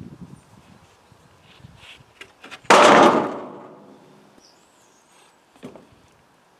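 A large sheet of plywood dropped flat onto steel girders: a single loud slap about three seconds in that dies away over about a second, with a few faint clicks before it and a light knock near the end.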